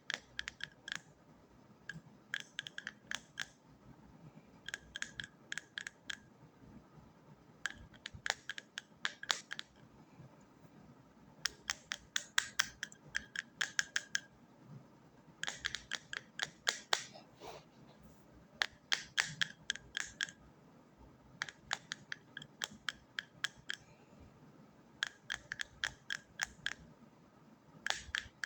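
Runs of sharp, crisp clicks, several a second, each run lasting a second or two and coming about every three seconds: close-miked ASMR trigger sounds.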